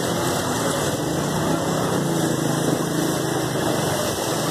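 A motor engine running steadily, a low hum that rises and fades slightly, under a constant wash of street noise.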